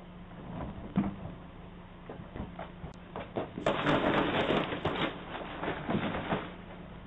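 Scattered clicks and a sharp knock about a second in, then a burst of clattering handling noise in the middle, over a steady electrical hum. Heard through a doorbell camera's low-fidelity microphone.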